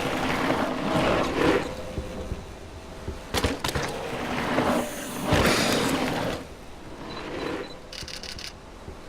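Mountain bike on a dirt trail: tyres rolling and skidding in repeated swells of noise, with a few sharp knocks about three and a half seconds in and a quick run of clicks near the end.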